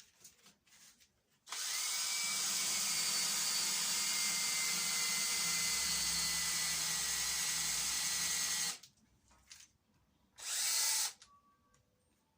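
Power drill running steadily for about seven seconds, then a short second burst, while a stainless steel bolt head is being polished smooth.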